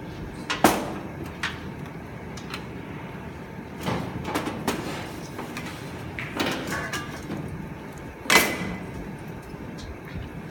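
Kitchen clatter: steel cleavers and metal ware knocked and set down on a plastic cutting board and stainless steel counter, about seven sharp clanks and knocks, the loudest just after the start and about eight seconds in.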